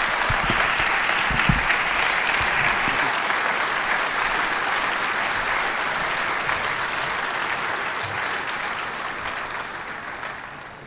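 Audience applauding, a dense steady clatter of clapping that fades out near the end.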